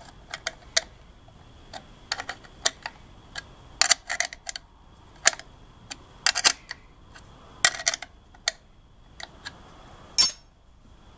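Steel combination wrench clicking and clinking against bolt heads and nuts as they are tightened by hand: a string of scattered sharp metallic clicks at no steady rhythm, with one louder clank near the end.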